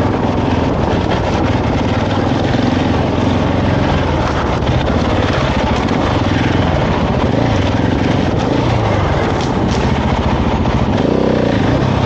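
Husqvarna 701 enduro motorcycle's single-cylinder four-stroke engine running under way, its pitch rising and falling with the throttle, with a short rev-up near the end.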